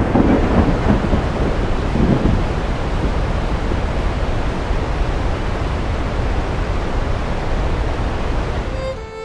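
Glacier-fed river in full flood: a loud, steady rush of water with a deep rumble underneath. It comes in suddenly, swells twice in the first couple of seconds, and eases off near the end.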